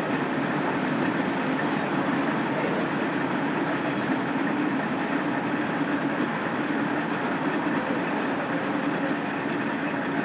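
Onboard running sound of a KiHa 47 diesel railcar with its original DMF15HSA diesel engine: a steady running noise with a continuous high-pitched squeal over it.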